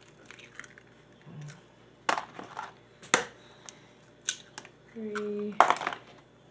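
Eggs being cracked one after another into a plastic container: several sharp shell cracks spaced about a second apart, the loudest near the end. A brief hummed note sounds about five seconds in.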